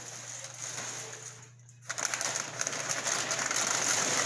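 Dry, crinkly protective paper and plastic wrap rustling and crackling as they are pulled off a crate engine. The crackling is lighter at first, pauses briefly, then turns louder and denser from about two seconds in, over a steady low hum.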